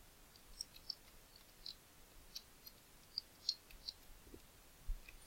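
Faint, irregular clicking of computer keys, about ten clicks spread over four seconds, as a website login is typed in.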